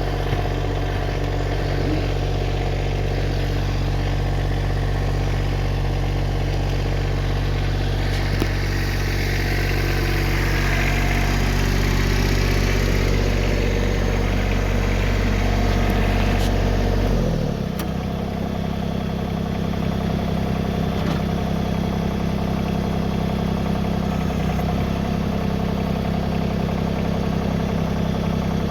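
Tractor engine running steadily. About seventeen seconds in, its note changes abruptly: the deep hum drops away and a higher, steady drone takes over.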